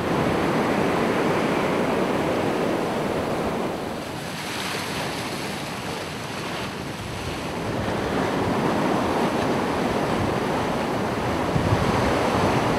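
Ocean waves washing in and breaking on the shore, swelling and easing, with wind rumbling on the microphone.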